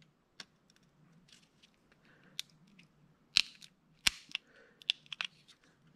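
Knife blade prying at the glued seam of a plastic Tile Bluetooth tracker, giving irregular small clicks and cracks as the glue bond between the two plastic halves gives way. The loudest crack comes about four seconds in, with a quick cluster of clicks just after.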